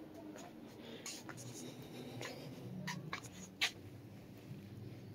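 Handling noise of a phone moving over piles of clothing: scratchy rubbing and fabric rustle with scattered short clicks, the sharpest about three and a half seconds in.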